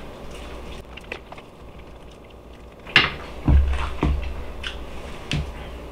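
A man biting into and chewing a roasted chicken wing: soft mouth clicks and smacks, then a sharp click about three seconds in, followed by a few low thumps.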